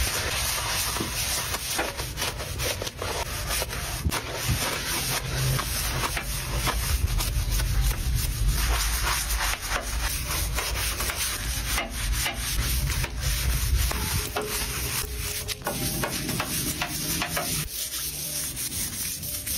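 Stiff-bristled plastic brush scrubbing a white tub coated in gritty cleaning paste, in quick repeated back-and-forth strokes, with a plastic scraper scraping the paste at the start.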